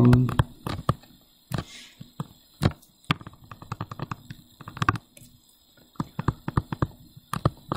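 Irregular light taps and clicks of a stylus pen striking and writing on a tablet screen.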